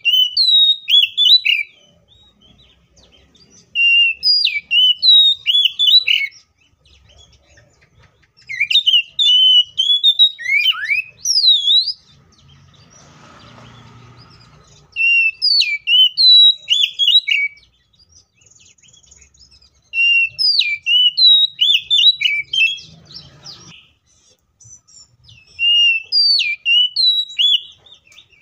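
Oriental magpie-robin (kacer) singing in full voice: repeated bouts of loud, rapidly changing whistled phrases, each about two to three seconds long, with short pauses between. A faint low rumble sounds in the pause around the middle.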